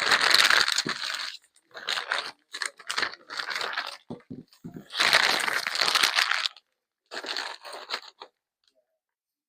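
Packaging crinkling and tearing in about five rough bursts as a bike rack's hardware pack is unwrapped.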